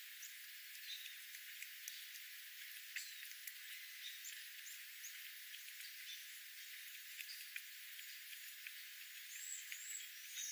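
Small wild birds chirping: short, scattered chirps and calls over a steady high hiss, with a few clustered chirps near the end.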